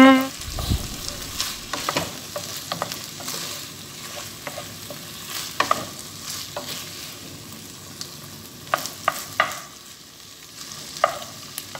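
A spatula stirring and scraping diced chicken and mixed vegetables around a nonstick frying pan, over a low steady sizzle of frying, with scattered sharp clicks as the spatula knocks against the pan.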